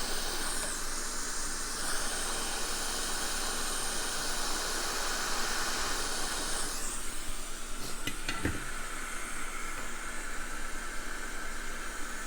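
Hot air rework station blowing a steady hiss of hot air while reflowing solder on a circuit board, its hiss changing in tone a couple of times, with a brief tick about eight seconds in.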